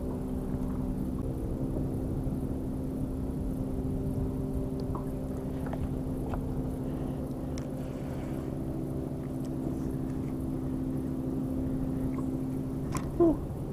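A steady low engine drone made of several held tones over a low rumble, with a short, loud pitched sound near the end.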